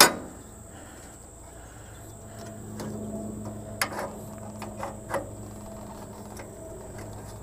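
Hands fitting a V-belt onto the stamped steel pulleys of a tiller mule drive: a sharp knock right at the start, then a few light clicks and knocks about four to five seconds in, over a steady low hum.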